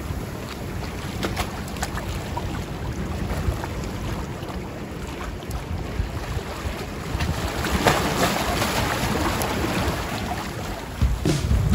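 Sea waves washing against concrete tetrapods, with wind buffeting the microphone; the rush grows a little louder about eight seconds in.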